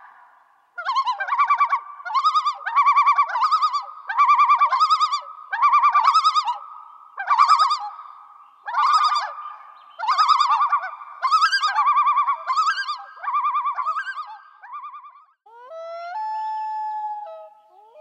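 Animal calls: a series of about a dozen short, trilled calls, each around half a second long and some in quick pairs, over a steady high tone. Near the end comes one longer, steadier call.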